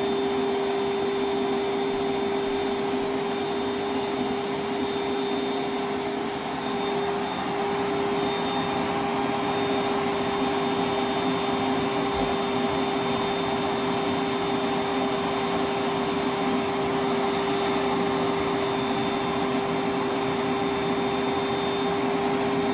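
Milwaukee M12 1.6-gallon cordless wet/dry vacuum (0960-20) running steadily with its hose lying open and nothing on it: a constant motor hum with a thin high whine over the rush of air.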